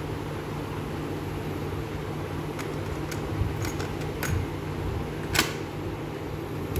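A cassette is pushed into a cassette deck's tape door, making a string of short plastic clicks and clacks. The loudest click comes about two thirds of the way through as the door shuts, and a piano-key transport button clicks near the end. A steady low hum runs underneath.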